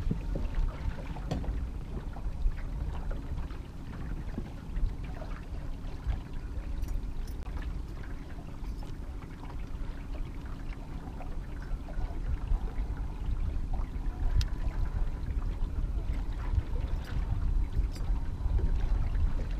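Steady low rumble of a small fishing boat trolling: water and wind noise with a faint, steady motor hum underneath, and a few light clicks.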